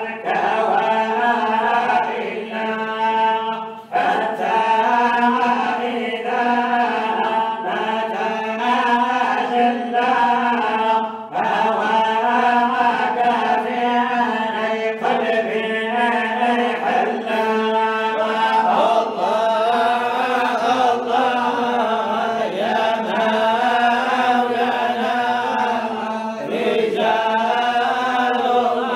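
Unaccompanied male voices chanting a Sufi samaa qasida: a lead voice sings long, ornamented lines with wavering held notes over a steady low tone held beneath. The singing breaks off briefly about four and eleven seconds in.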